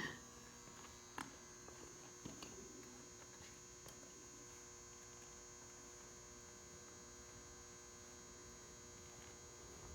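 Near silence with a faint steady electrical hum, and a couple of faint clicks in the first few seconds.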